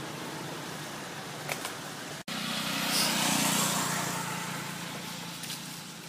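Motor vehicle engine with a steady low hum. After a brief break about two seconds in, it swells to its loudest a second later, then slowly fades, like a vehicle passing by.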